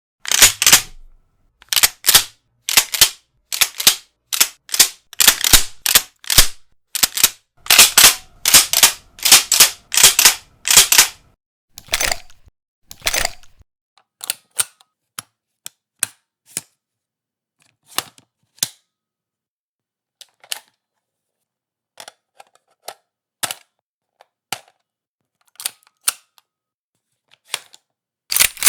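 Firearm reloading sound effects: sharp mechanical clicks and clacks of gun actions being worked, packed closely together for the first dozen seconds, then thinning out to single clicks about a second apart.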